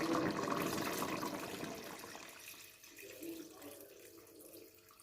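Hot water being poured into a cooking pot of chicken masala, the pour tapering off after about two seconds.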